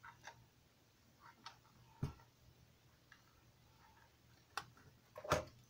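Light clicks and knocks from a small micro switch and its wires being handled, coming at irregular moments, with firmer knocks about two seconds in and near the end.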